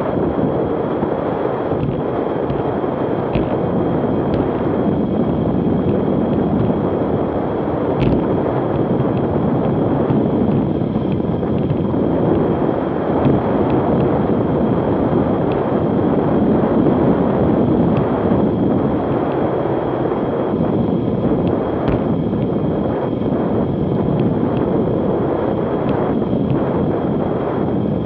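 Wind rushing over the microphone of a road bicycle coasting downhill at about 40 mph, loud and steady, with a few brief clicks.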